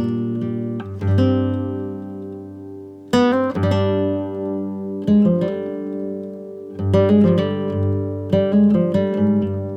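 Acoustic guitar music, plucked and strummed chords ringing out, played through the speaker of a 3055-transistor audio amplifier under test for a weak channel.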